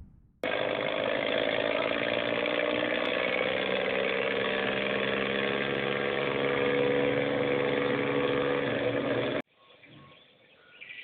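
A vehicle engine running steadily at an even pitch. It starts abruptly about half a second in and cuts off suddenly near the end, as an inserted sound effect would.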